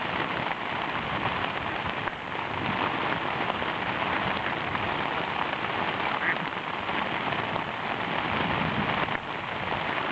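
Heavy rain falling steadily on an MSR Hubba tent's rainfly, heard from inside the tent.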